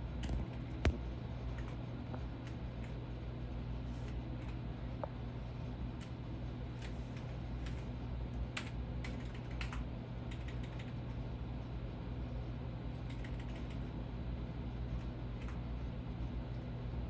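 Scattered light clicks and taps, some in quick clusters like typing, with one sharper click about a second in, over a steady low hum.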